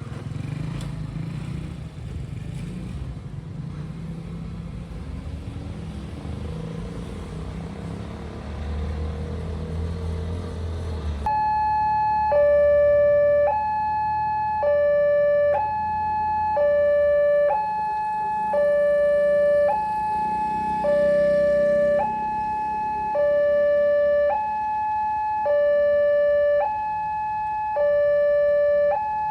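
Low rumble for about the first eleven seconds. Then the railway level-crossing barrier's electronic warning alarm starts: a two-tone high-low signal that alternates steadily, one high-low cycle about every two seconds, signalling an approaching train.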